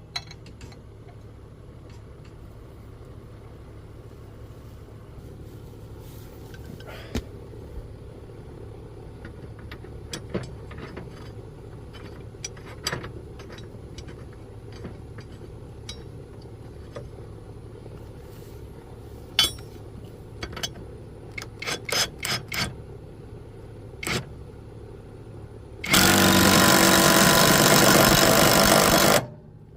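Metal clinks and knocks of a mower blade, bolt and washer being handled, over a low steady hum. Near the end a Bauer brushless 3/8-inch cordless impact wrench hammers for about three seconds, driving a lawnmower blade bolt tight.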